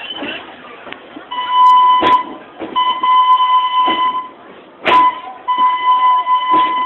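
A high, steady whistle tone sounding in three long blasts, broken by two sharp knocks.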